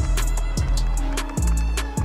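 Background music with a steady drum beat over a held bass line.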